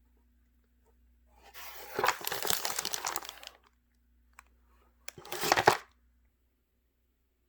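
Packaging crinkling and rustling as it is handled, in two bursts: a longer one of about two seconds, then a shorter one about a second and a half later.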